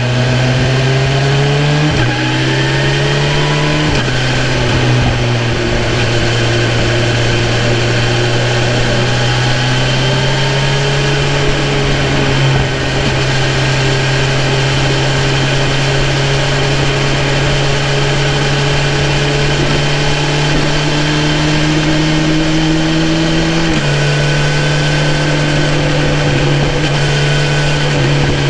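2018 BMW S1000RR's 999 cc inline-four engine pulling hard through two quick upshifts in the first few seconds, its note rising and dropping at each shift. It then runs at a steady cruising speed, with a step change in the engine note about 24 seconds in.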